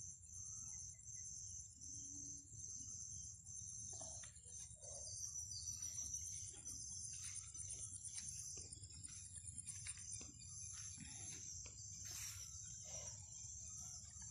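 Insects trilling in a high, steady chorus that pulses on and off. From about four seconds in, footsteps rustle and crunch over dry palm-frond mulch.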